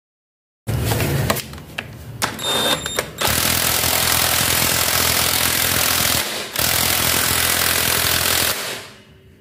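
Impact wrench rattling as it runs the nut onto the scooter's CVT pulley, tightening it back down. After a few short bursts it hammers steadily for about five seconds, with a brief break partway through, then stops.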